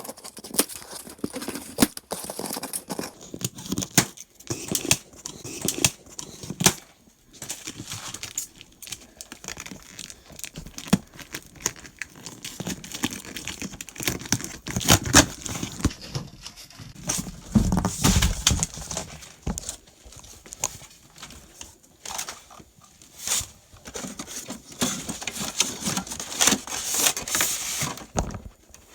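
Irregular handling noises: rustling, crinkling and tearing of packaging, with scattered knocks.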